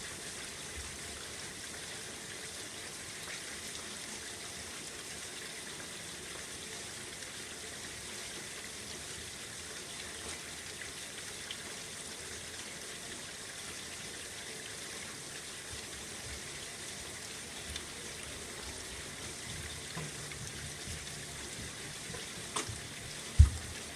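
Steady rain falling, an even hiss with scattered drips. Near the end a click and then a single loud, low thump from a screen door.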